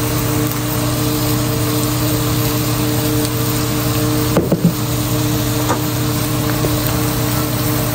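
Beef frying in a pan on a gas stove under a steady hum with constant low drone tones. A few light knocks come about four and a half seconds in.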